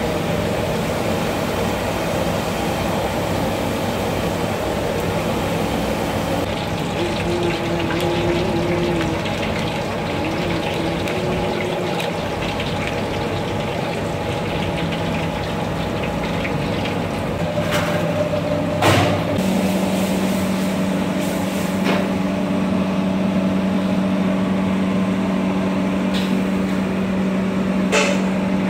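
Dumplings deep-frying in a wok of hot oil: a steady sizzle and bubble over a steady machine hum, with a couple of sharp knocks past the middle.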